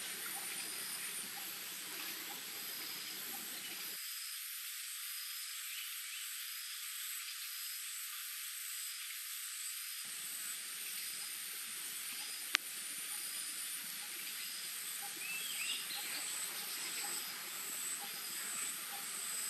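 Forest insects chirping in a steady high-pitched drone, with a faint chirp repeating about once a second. A sharp click sounds once about two-thirds of the way through, and a few quick chirps follow shortly after.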